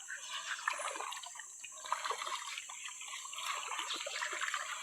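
River water trickling, with many small, irregular splashes.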